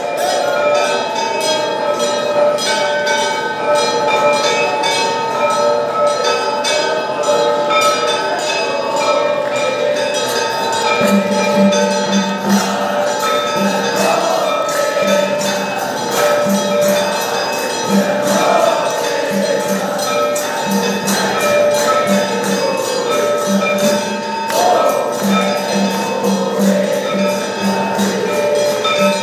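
Temple aarti bells and cymbals ringing rapidly and continuously, with steady ringing tones over the strikes. A pulsing low tone joins about a third of the way in, and devotees' voices sing along.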